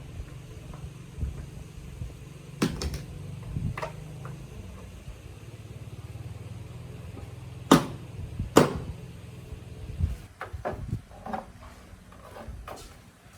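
A low steady hum with a few sharp knocks over it, two of them loud near the middle. Lighter clicking and clatter follows once the hum fades.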